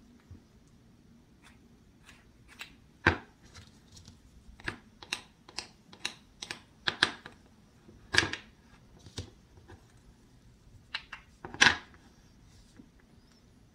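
Toy play food and a toy wooden knife handled on a small wooden cutting board: a string of light clicks and taps, with three louder, slightly longer knocks about three, eight and eleven and a half seconds in as the toy pepper is cut apart and its halves set down.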